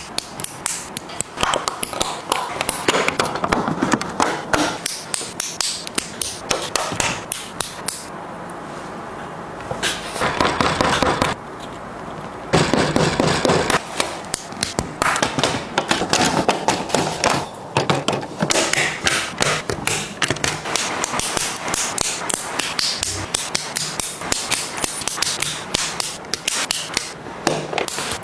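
Plastic LEGO bricks handled and pressed together by hand: a close, rapid run of sharp clicks and small knocks as pieces snap onto studs and rattle against each other, with a short softer stretch about a third of the way in.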